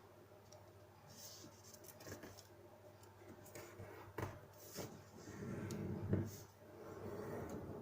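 A square sheet of paper being folded and creased by hand: soft rustling and crinkling with scattered light taps, growing busier in the second half, with a sharp tap about six seconds in.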